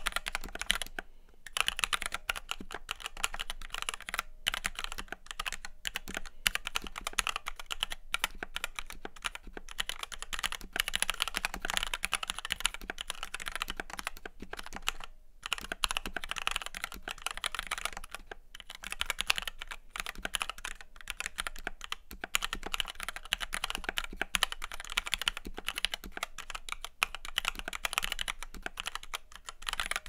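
Continuous typing on a Red Square Keyrox Classic TKL v2 mechanical keyboard with Gateron Red linear switches, PBT doubleshot keycaps and lubed plate-mount stabilizers: a dense run of keystroke clacks, with brief pauses about a second in and about halfway through.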